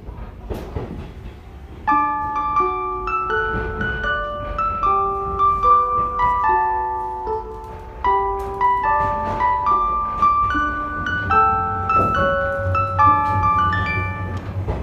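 JR 185 series train's onboard chime, a bell-like melody of many clear notes played over the car's PA speaker. It starts about two seconds in, over a low rumble.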